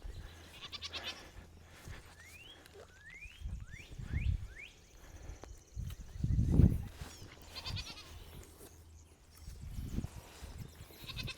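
Goats bleating a few times, with a run of short rising chirps and a few dull thuds, the loudest about halfway through.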